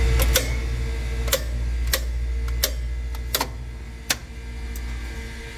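The hum of compressors on a refrigeration compressor rack drops away in steps as they shut off. There are about six sharp clicks of the contactors in the rack's control panel dropping out, one every half second to second.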